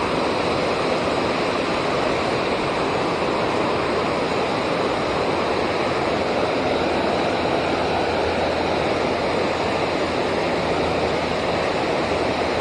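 Steady rush of fast-flowing river water, an even hiss with no breaks.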